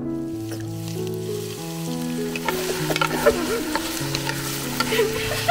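Diced onions sizzling in hot oil in an enamelled cast-iron pot while a wooden spatula stirs them with small scraping clicks. The sizzle builds from about two seconds in. Background music with held notes plays under it.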